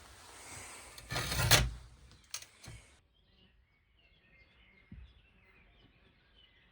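A loud rushing burst of noise with a few sharp clicks after it, then a sudden drop to a quiet forest background with faint bird chirps and a single low thump.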